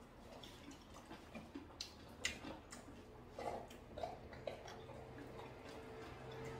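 Quiet eating sounds: scattered light clicks of chopsticks against a soup bowl, and short chewing and mouth noises. A faint steady low hum comes in after about five seconds.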